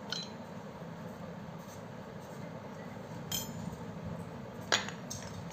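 Metal clinks from a Hitachi angle grinder's aluminium gear housing and parts as they are handled and taken apart: three sharp clinks, the loudest a little before the end, over a steady low background noise.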